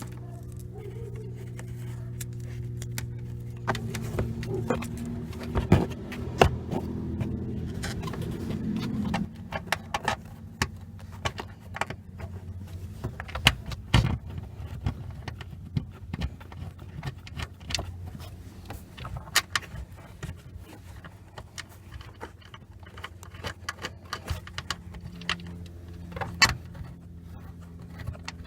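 Metal clicks and clinks of screws and hand tools being handled, scattered through a steady low hum. The hum grows louder and rises slightly from about four to nine seconds in.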